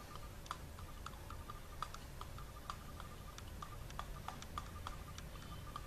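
Faint, irregular clicking of a computer mouse, with quick runs of scroll-wheel ticks as catalogue pages are scrolled, over a faint low hum.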